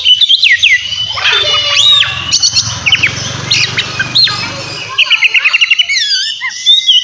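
Oriental magpie-robin (kacer) singing loudly: a varied run of whistled, slurred notes rising and falling, mixed with harsher calls. A fast burst of repeated notes comes about five seconds in.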